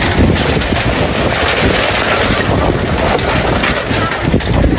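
Wind buffeting the microphone: a loud, steady rush with a low rumble.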